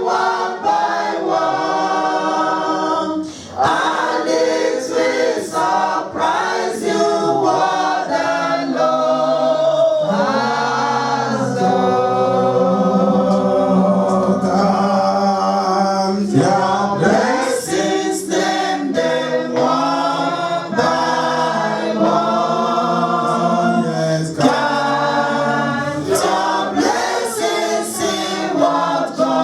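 Choir singing a worship song, several voices together, sustained throughout.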